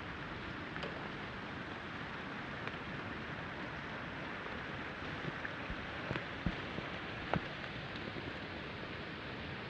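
Small-scale RC crawler's tyres crunching over gravel and rock in a steady gritty crackle, with a few sharp knocks around the middle.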